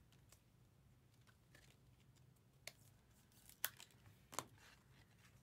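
Near silence: faint room tone with a low steady hum, and three short soft clicks or taps about halfway through and near the end.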